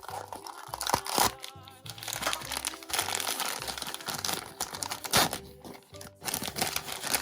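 Plastic wrapping crinkling as a toy capsule's contents are unwrapped by hand, with a couple of sharp snaps, over background music.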